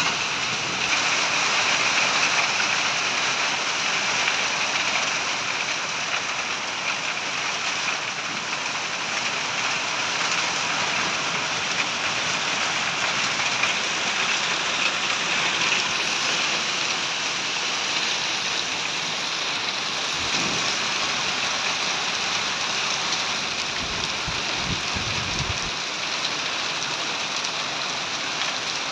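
Heavy rain falling steadily onto a road and wet, puddled ground: an even, dense hiss with no let-up.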